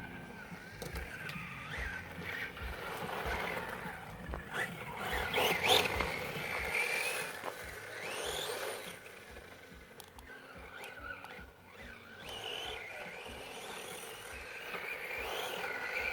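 Losi 10SCTE electric short-course RC truck driving on dirt: its brushless motor, on a 3S LiPo, whines up and down in pitch with the throttle, over the hiss of the tyres on the ground. The loudest run comes about six seconds in.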